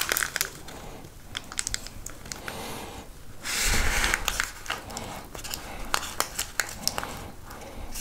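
Brown paper crinkling and rustling under the fingers as string is passed around a paper-wrapped cartridge bundle and knotted, with many small sharp clicks. About three and a half seconds in, a rush of noise lasting about a second is the loudest sound.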